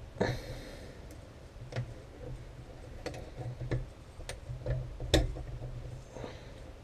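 Scattered sharp clicks and knocks of an airsoft version 2 gearbox shell being worked at to pull its two halves apart, which are stuck firmly together. A brief scraping rasp comes about a quarter second in, and the loudest knock just after five seconds.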